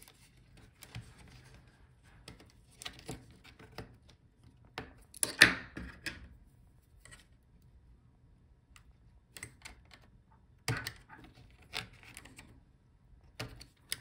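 Scattered small clicks and scrapes of fingers and a tool working a laptop's tiny fan cable connectors loose on the motherboard, with the loudest scrape about five seconds in.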